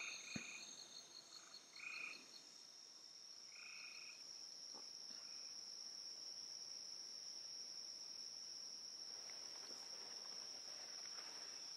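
Faint night chorus of frogs and insects: short frog calls every second or two for the first few seconds, over a fast high insect trill and a steady high insect drone that carries on alone after the frogs stop.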